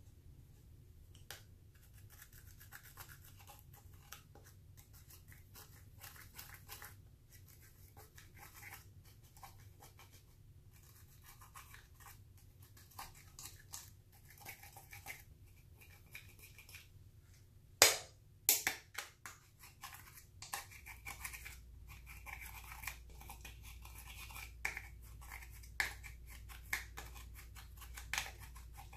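Quiet, brisk scratching and scraping with many small clicks, typical of eyeshadow being scraped and worked into clear slime. A sharp click comes about eighteen seconds in.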